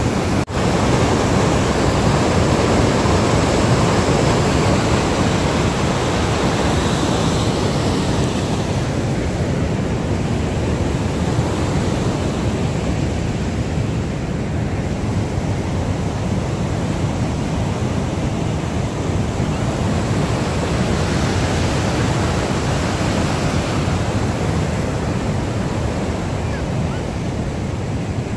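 Steady rush of water spilling over a river dam, with wind on the microphone. A brief dropout about half a second in.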